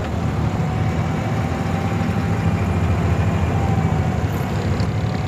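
Engine of a wooden abra water taxi running steadily under way, a low even drone.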